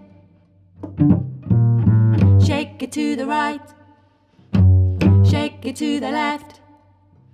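Children's song: a woman singing to cello accompaniment. Two short sung phrases, with brief pauses before, between and after them.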